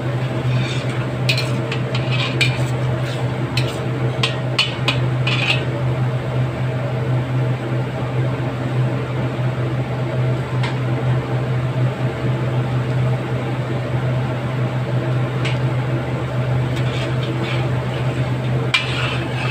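Dark sauce bubbling in a steel wok while a metal spoon stirs it, scraping and clinking against the wok in a quick run of strokes during the first six seconds and again a few times near the end. A steady low hum runs underneath.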